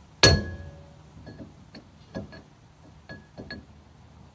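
A steel chisel struck against the rear hub nut of a Fiat Ducato's brake drum to stake its locking collar. There is one loud ringing metallic blow about a quarter-second in, several lighter clinks, and another ringing blow right at the end.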